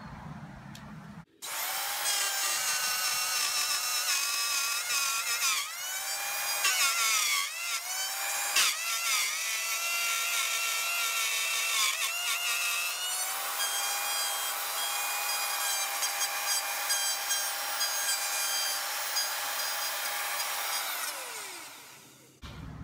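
Handheld electric router with a bearing-guided template bit cutting a channel in a butcher-block guitar body blank: a high whine at full speed that starts abruptly about a second in, its pitch dipping several times as the bit bites into the wood. Near the end the motor is switched off and spins down with a falling pitch.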